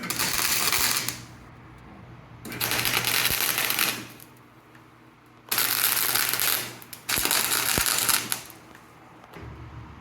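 MIG welder laying short bursts of weld on rocker-panel sheet metal, crackling and sizzling, four times, each for about a second, with pauses between.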